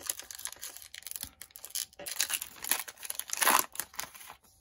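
Baseball card pack wrapper being torn open and crinkled by hand, in a run of crackling rustles with the loudest rip about three and a half seconds in.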